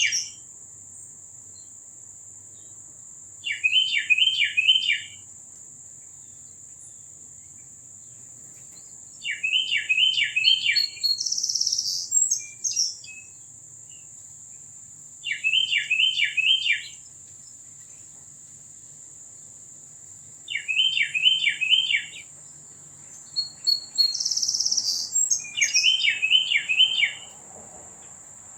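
A songbird singing a short phrase of four or five quick downslurred notes, repeated about every five or six seconds, some phrases opened by a brief buzzy note. Under it runs a steady high-pitched insect drone.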